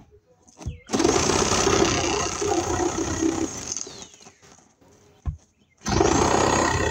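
Electric saw run in two bursts, notching the opening for the light's box in the wall; after each burst the motor winds down with a falling whine. A single sharp knock between the two runs.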